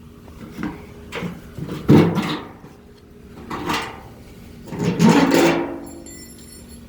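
Several separate knocks and scrapes of metal wheelbarrow parts and tools being handled as bolts and parts are taken off; the loudest come about two seconds in and about five seconds in, the last with a brief ringing.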